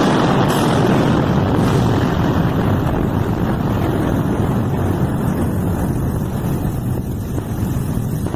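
Air blast from an explosion travelling down a tunnel: a loud, steady rush of wind buffeting the microphone, easing slightly near the end.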